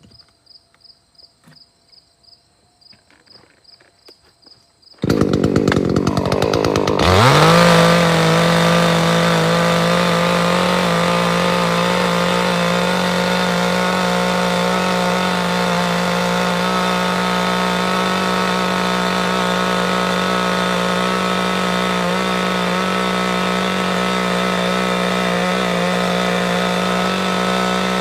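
Chainsaw starting up abruptly about five seconds in, revving up within a couple of seconds and then running steadily at high speed. Before it, faint insect chirping.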